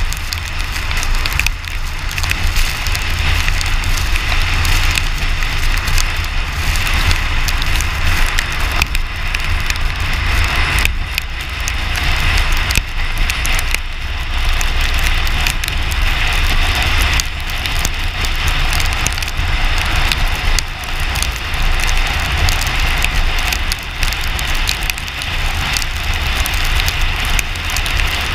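Wind and road noise from a car driving on a wet road, picked up by a camera mounted on the car's outside: a steady low rumble with a rushing hiss, and a constant crackle of water drops hitting the camera.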